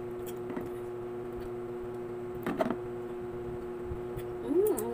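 Soft mouth sounds of someone eating ripe papaya over a steady low hum: a short wet smack about halfway through and a brief hummed 'mm' that rises and falls near the end.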